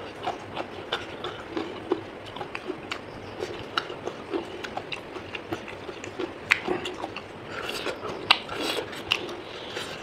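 A person eating close to the microphone: chewing with many irregular wet clicks and smacks, and small taps against a plate. A few louder clicks stand out about six and a half and eight seconds in.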